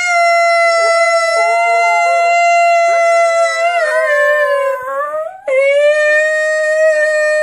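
A schnauzer howling together with its owner in long held notes. The first note wavers and slides downward about four seconds in, then breaks off, and a new steady note starts about a second and a half later.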